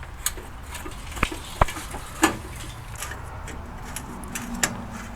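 Screwdriver and small screws on a car's headlight trim: scattered sharp metal clicks and taps, the loudest about one and a half and two seconds in.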